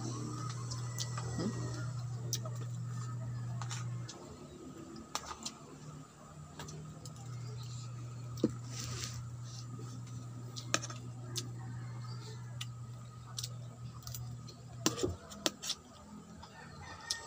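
Scattered small clicks and taps from eating at a plate of food, over a steady low hum that drops away about four seconds in and comes back around seven seconds.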